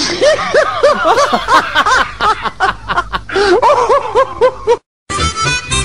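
Canned laughter: several voices laughing in a quick, repeated 'ha-ha'. It cuts off suddenly near the end, and after a brief gap music starts.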